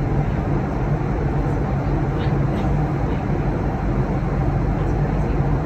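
Steady roar inside an airliner cabin in cruise flight: engine and airflow noise with a constant low hum.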